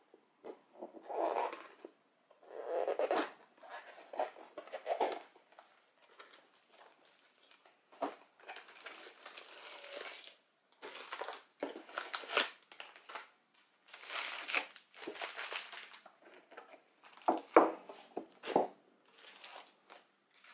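Plastic shrink-wrap being torn off a cardboard kit box and the box opened, with plastic packaging crinkling and rustling in irregular bursts. A few sharper knocks come in the later part.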